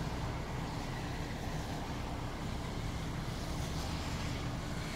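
Dodge Grand Caravan's engine idling steadily: an even low rumble that does not change.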